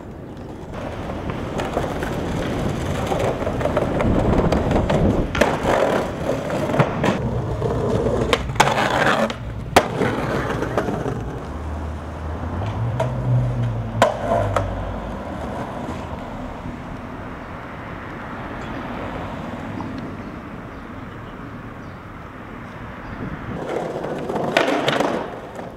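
Skateboard wheels rolling over concrete pavement, the noise swelling and fading, with a few sharp clacks of the board popping and landing on tricks.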